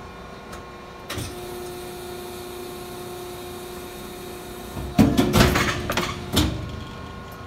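Samco hydraulic beam die-cutting press cycling. A knock about a second in, then a steady hum. About five seconds in comes a loud burst of clanking and hissing, lasting about a second and a half, as the beam presses down through the stacked sheets.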